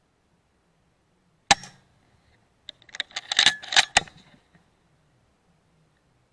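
A .177 Weihrauch HW100 PCP air rifle fires one sharp shot about a second and a half in, followed about a second later by a quick run of metallic clicks and clacks as the action is worked to chamber the next pellet.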